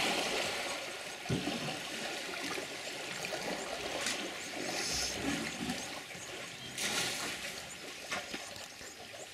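Water trickling and sloshing as bull African elephants wade in a waterhole and draw water up in their trunks to drink, with a few short, louder splashes through it.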